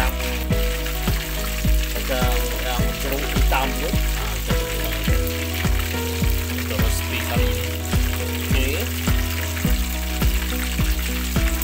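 Tilapia deep-frying in hot oil, a steady sizzle, under background music with a regular beat of about two a second.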